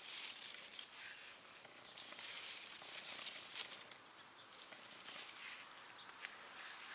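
Faint rustling and soft steps of someone walking through garden plants, with scattered light ticks.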